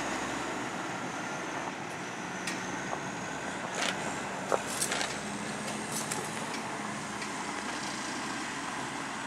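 Side-loader garbage truck driving slowly away, its diesel engine running steadily, with a few light knocks and rattles.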